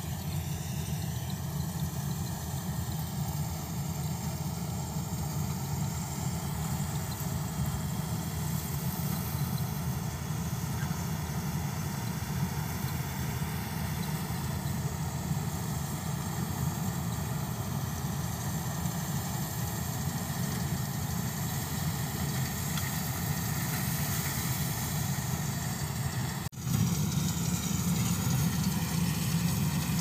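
Combine harvester's diesel engine running steadily as it cuts rice, a continuous low drone. Near the end the sound breaks off for an instant and comes back louder.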